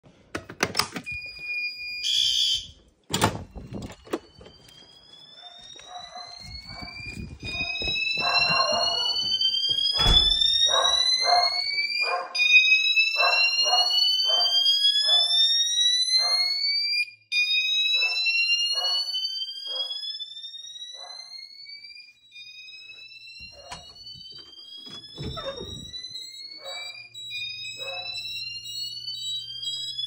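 A fire alarm pull station is pulled with a sharp click, and the building's fire alarm speaker strobes sound. They play a rising whoop tone that sweeps upward again and again, each sweep a few seconds long, under a quicker pulsing lower note.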